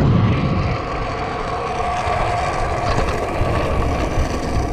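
Stunt scooter's small hard wheels rolling fast down an asphalt street: a steady rough rolling roar with a deep rumble, a little quieter after the first second.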